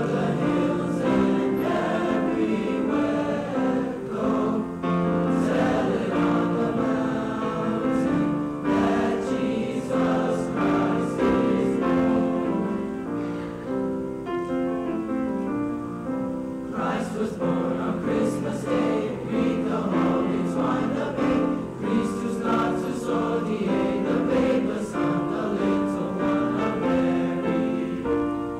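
Junior high school choir singing a held, flowing song in parts, with piano accompaniment.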